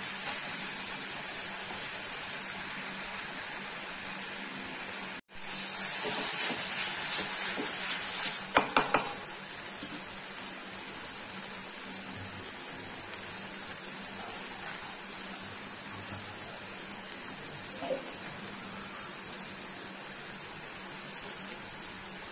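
Masala paste frying in oil in a metal kadai with a steady high sizzle, and a quick run of clinks from a steel spatula striking the pan about nine seconds in.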